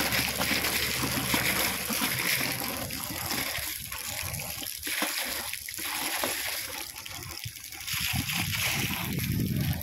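Borewell water gushing from two plastic delivery pipes of a compressor-driven double pump and splashing onto dry soil, the flow surging and easing.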